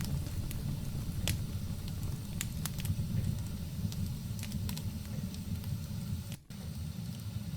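Wood fire burning in a fireplace: a steady low rush with scattered sharp crackles and pops. The sound drops out for a moment about six seconds in.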